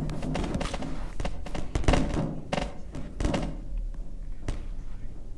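A series of short knocks and thunks, several in the first few seconds and a last one about four and a half seconds in, as of a hard object being handled or tapped.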